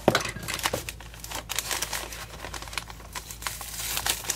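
Tissue-paper wrapping and its clear plastic sleeve crinkling and rustling as the bundle is lifted and handled. Irregular sharp crackles run throughout, loudest just after the start and again near the end as fingers pick at the sealing sticker.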